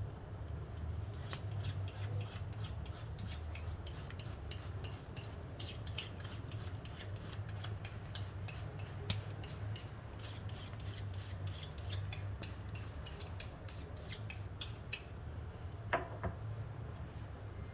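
Wood fire crackling in the firebox of a wood-burning stove, with many irregular snaps over a steady low rumble; the snapping dies down about three-quarters of the way through. A single louder, briefly ringing knock comes near the end.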